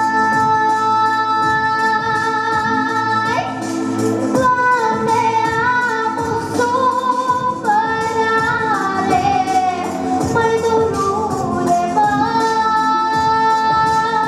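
A girl singing into a microphone over a backing track with a steady beat. She holds one long note at the start, sings ornamented runs that wander up and down in pitch through the middle, and holds another long note near the end.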